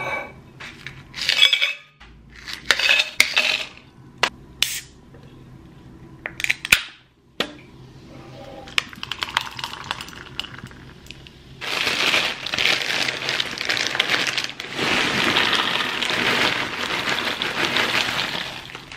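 A stainless steel tumbler is set down on a countertop with clinks and knocks. Soda is poured into it with a faint hiss, then kettle corn is tipped from a plastic bag into a ceramic bowl, a loud rustling rattle over the last several seconds.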